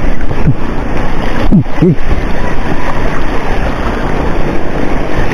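Wind buffeting the microphone over sea waves, a loud, steady rumbling rush. About one and a half seconds in, a brief wavering sound rises and falls.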